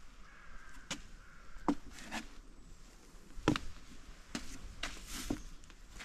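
Footsteps of someone walking a trail, short scuffing or crunching steps at an uneven pace of roughly one a second.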